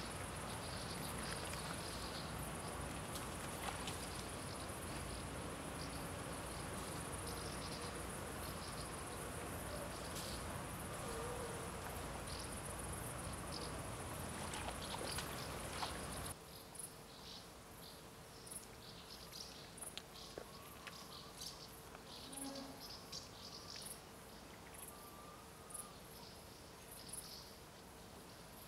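Insects chirring steadily at a high pitch over background noise. About halfway through this cuts off abruptly, leaving a quieter background with a faint low steady hum and scattered faint clicks.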